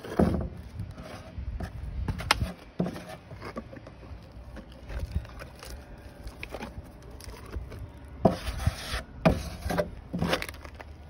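Plastic spreader scraping and rubbing epoxy over inflatable-boat fabric in short, irregular strokes. A few louder scrapes and knocks come near the end.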